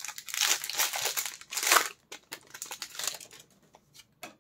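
Foil wrapper of a Pokémon trading card booster pack crinkling as it is handled and opened. The crackle is dense for about two seconds, then thins to a few light rustles.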